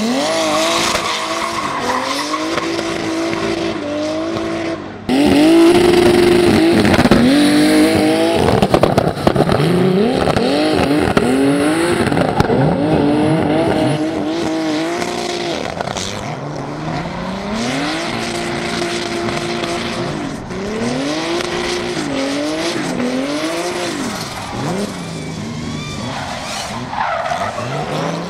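Turbocharged BMW E46 drift car revving hard over and over while sliding, its engine pitch climbing, holding and dropping again and again, with tyres skidding and squealing on the tarmac. It gets much louder about five seconds in.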